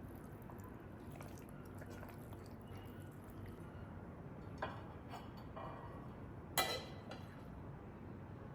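Quiet kitchen handling sounds: a low steady background with a few short taps, the loudest and sharpest about six and a half seconds in.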